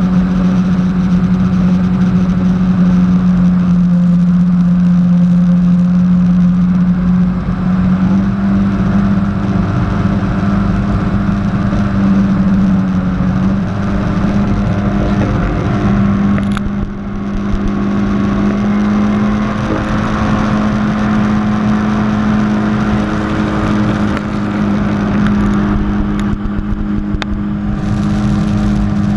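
Jet ski engine running steadily at speed, a loud drone that steps up slightly in pitch about a third of the way in and again around the middle, over a rushing noise.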